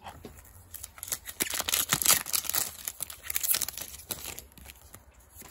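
Crinkling and rustling of a foil Yu-Gi-Oh booster pack wrapper as it is torn and handled, with cards being shuffled through by hand. A dense crackle that builds to its loudest in the middle and dies down about a second before the end.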